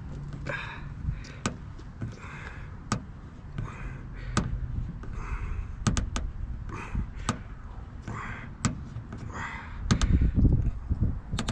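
Knob of a plastic glue-tab dent puller bridge being screwed tighter by hand, giving sharp clicks about every second as the tab pulls on the dented door panel. Heavier handling rumble comes in near the end.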